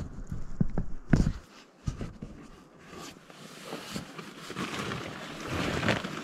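A person climbing into a small log shelter and settling on a floor bed of conifer boughs: a few knocks and thumps in the first second or so, then rustling of clothing and boughs.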